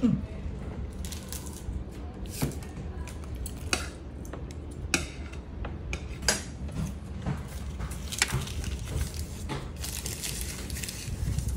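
Forks, spoons and chopsticks clinking and scraping against ceramic plates during a meal, a sharp clink every second or so, over a steady low hum of room noise.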